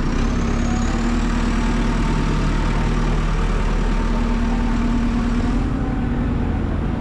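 A motor vehicle's engine idling steadily close by, a low rumble with a steady hum, amid street traffic.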